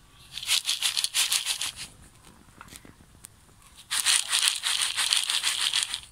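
Rapid rattling, many clicks a second, in two bursts of about two seconds each: one starting about half a second in and the other about four seconds in.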